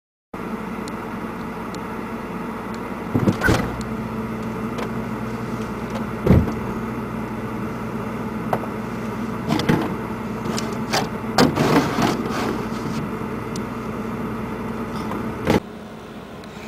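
Refrigerator running with a steady hum, broken by several knocks and rattles from things on its shelves being handled. Near the end the hum drops to a quieter level.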